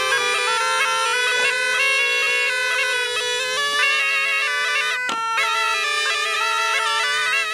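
Snake charmer's pungi (been), a gourd reed pipe, playing a quick, ornamented melody over a steady drone. A single short click about five seconds in.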